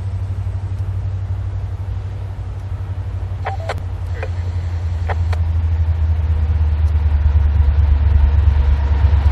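Low rumble of an approaching freight train led by an EMD SD70M-2 diesel locomotive, growing louder through the second half. A few short high chirps come about halfway through.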